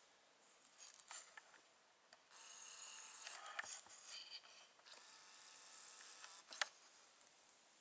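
Faint camcorder zoom motor whining twice, once a little over two seconds in and again around five seconds in, with a few light handling clicks; the sharpest click comes near the end.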